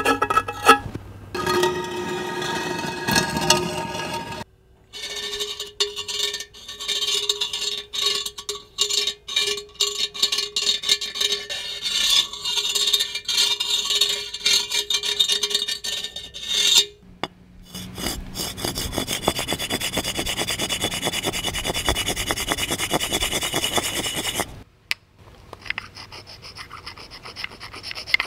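A run of separate scraping sounds, one after another. First, nails scraped over a white masonry block with a squealing screech. Then, after a short break, a metal point scraped along the grooves of a ridged clay pot with a steady whine. Then two more rasping scrapes, the last one quieter.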